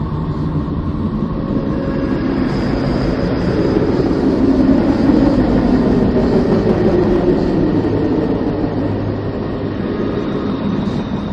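A 'planet sound from space': a continuous low rumbling drone with faint steady tones, swelling louder in the middle and easing off toward the end.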